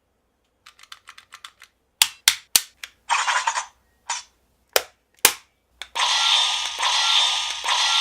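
CSM Lost Driver toy belt being worked: a run of faint ticks, then several sharp plastic clicks and short bursts of noise as its parts are moved, followed about six seconds in by the belt's loud electronic sound effect.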